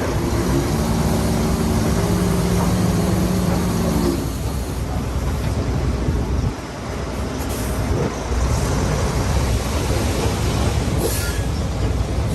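Heavy diesel earthmoving machinery (dump trucks and a bulldozer) working: a steady engine drone for the first four seconds gives way to a rough, noisy rumble.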